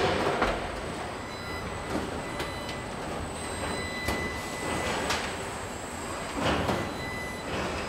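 Factory-floor noise of a robotic car-body welding line: a steady machine din with a faint high steady tone, broken by about five short bursts of noise from the robots' welding guns and clamps, the strongest near the start and about two-thirds of the way through.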